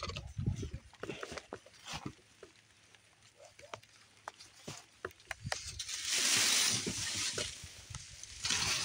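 Leafy brush and dry twigs rustling and crackling as someone pushes through them, with scattered snaps and low thumps. A louder rush of rustling comes about six seconds in, lasts a second or so, and returns near the end.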